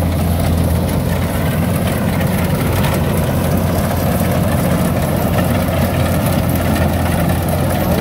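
Tracked rice combine harvester running steadily as it cuts the crop, its engine giving a loud, even drone.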